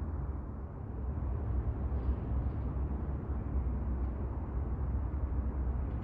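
Steady low rumble of background noise, with no distinct events.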